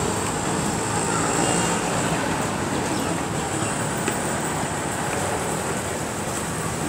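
Steady road traffic noise from a city street: an even rumble and hiss with no single vehicle standing out.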